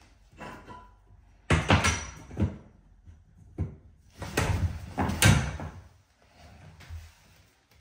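Copper pipes knocking and scraping against each other and the wall as they are pulled by hand to straighten them, in two bursts of clattering knocks.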